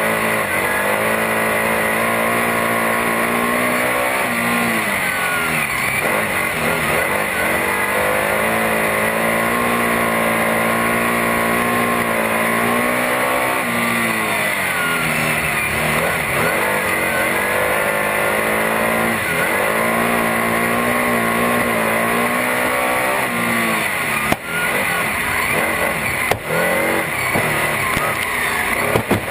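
Superstock speedway car's engine at racing speed, heard from inside the cockpit. The engine note falls and climbs again about four times as the driver eases off for each turn of the oval and gets back on the throttle down the straights, with a couple of brief sharp knocks near the end.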